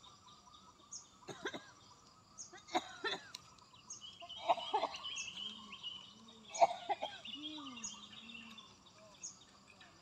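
Birds chirping and calling in a rural setting, with a few short, sharper sounds standing out among them, the loudest about two-thirds of the way in.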